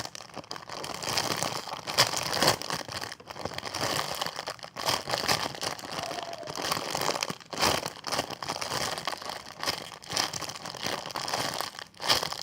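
Continuous crinkling and rustling of plastic while a squishy foam toy is handled and squeezed, with a few sharper crackles.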